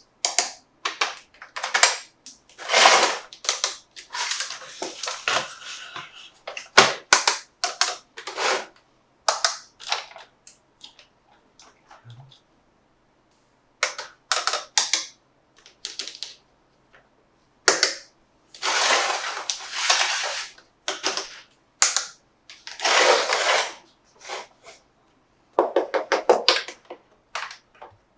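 Plastic toy parts and packaging being handled: an irregular run of sharp clicks and snaps, with several longer rustling bursts.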